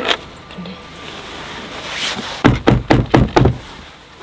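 A quick run of about six knocks, roughly five a second, beginning about two and a half seconds in after a brief rustle.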